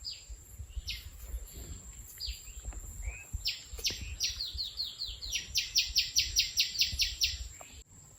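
A bird calling: a few single sharp downward notes, then from about three and a half seconds a fast run of repeated downward notes, about four or five a second, that stops shortly before the end. A low rumble runs underneath.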